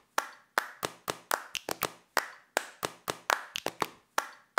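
A run of sharp claps in an uneven rhythm, about four a second, each with a short ringing tail.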